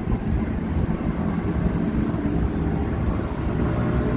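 Steady low rumble of background noise with no clear breaks or strokes.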